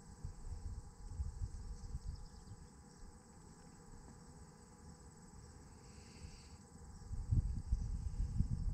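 A steady, high-pitched drone of field insects. A low rumbling noise underneath grows louder near the end.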